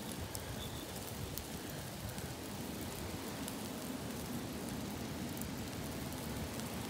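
Charcoal embers crackling and sizzling under a spit-roasting rabbit, a steady hiss with scattered sharp pops.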